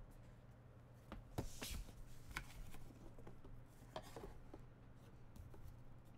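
Faint handling sounds from a black hard-shell Panini Flawless briefcase box as its lid is opened: light rubbing and a scattering of short clicks, most between one and two and a half seconds in and again around four seconds.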